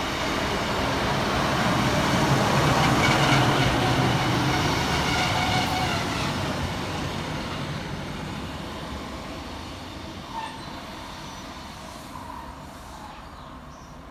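Northern Class 156 Sprinter diesel multiple unit arriving and passing close by, its underfloor diesel engines and wheels on the rails loudest about three seconds in. The sound then fades steadily as it runs on down the platform.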